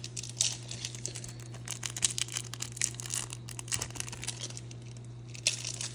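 Plastic packaging crinkling and rustling in irregular bursts as trading-card box contents are handled, over a steady low hum.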